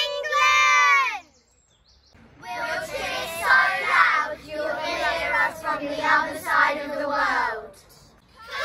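The end of a long, drawn-out shout of "Come on!" by three young girls, falling in pitch as it dies away. After a short pause, a group of young girls sings together for about five seconds.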